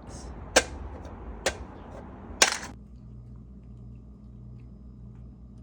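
Three sharp smashing impacts about a second apart, the last the loudest, as a reusable 3D-printed pumpkin is smashed. A low steady hum follows.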